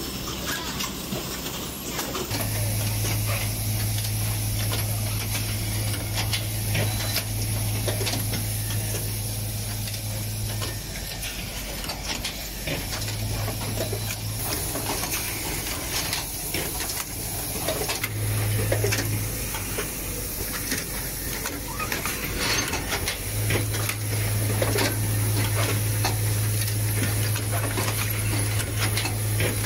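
Automated motor-housing assembly machine running: pneumatic hiss and rapid clicks of actuators. A low electrical buzz switches on and off several times.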